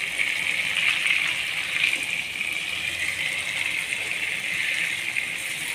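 Marinated chicken legs sizzling in hot oil in a steel kadai: a steady, even hiss. There are a few light scrapes and taps as a spatula and spoon turn the pieces.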